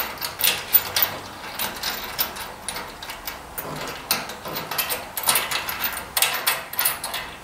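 Irregular light clicks and rattles of metal parts being handled around a tractor's radiator shroud and cooling fan.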